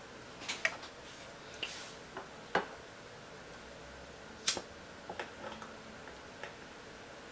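A scatter of about ten sharp clicks and light knocks at uneven intervals, the loudest about four and a half seconds in, from objects being handled.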